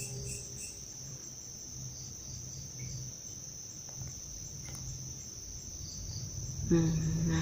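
Crickets chirping in a steady, continuous high tone, with a soft low pulsing underneath. A man's voice starts near the end.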